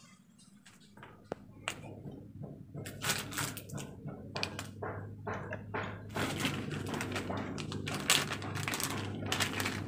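Clear plastic packaging crinkling and rustling in the hands as a roll of handlebar tape is handled and unwrapped, with a few light knocks of handling. The crinkling grows busier and louder from about three seconds in.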